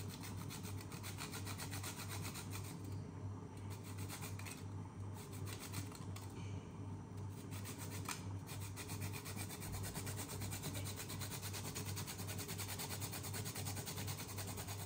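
Nutmeg being grated on a fine metal hand grater: a quick, steady run of short scraping strokes, with a low steady hum underneath.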